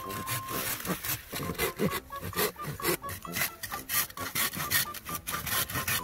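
Hand saw cutting through the base of a green bamboo stalk: a run of quick, even back-and-forth rasping strokes.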